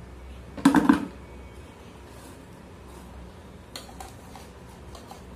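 Mango pickle being spooned from a steel bowl into an empty plastic jar: a short clatter of knocks about half a second in, then a few faint clicks.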